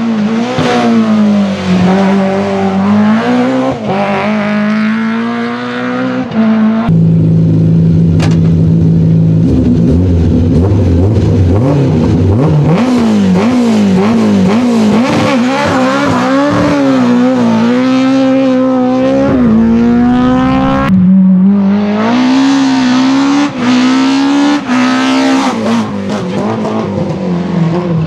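BMW E30 M3 Group A rally cars' 2.3-litre S14 four-cylinder engines at high revs, in three cuts. First a car accelerating with gear changes. Then one held at steady revs for a couple of seconds and blipped up and down again and again. Then another pulling hard through the gears.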